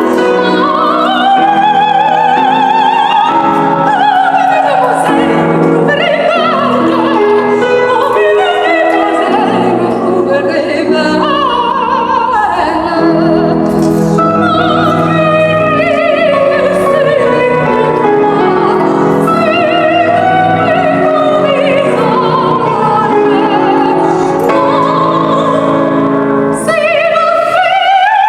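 Soprano singing an opera aria with a wide vibrato, holding long high notes and gliding between them, over piano accompaniment.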